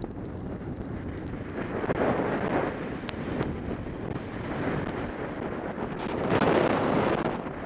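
Wind rushing over a camera microphone on a moving skier, with skis hissing and scraping over packed snow. The noise swells twice, about two seconds in and again near the end, as the skier turns.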